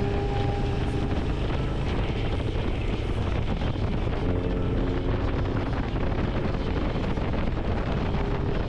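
Motorcycle on the move: engine and road noise under heavy wind rush on the microphone, steady throughout.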